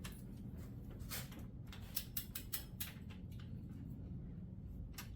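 Click-type torque wrench ratcheting on a small-block Chevy cylinder head bolt during a 45 ft-lb tightening pass: a scatter of short sharp clicks, several in quick succession about two seconds in, over a low steady hum.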